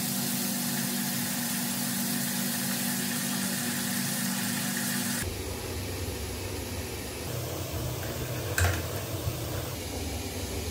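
Bath tap running, water pouring steadily into a filling bathtub; it cuts off about five seconds in. A low steady hum follows, with one sharp click a few seconds later.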